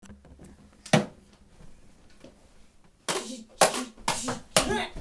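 Toy lightsabers clashing: a single knock about a second in, then from about three seconds in a quick run of loud electronic clash sounds, about two a second, each with a buzzing, ringing tail.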